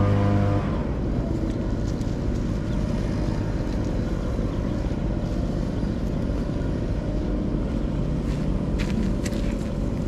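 Background music stops just after the start, leaving a steady low outdoor rumble with a few light crackles near the end.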